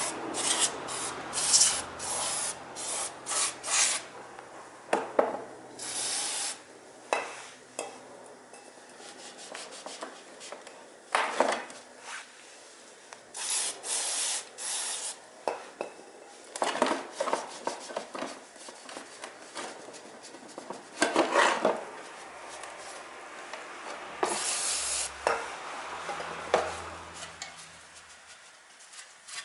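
Hand work on metal parts: irregular scraping and rubbing strokes with occasional sharp clinks.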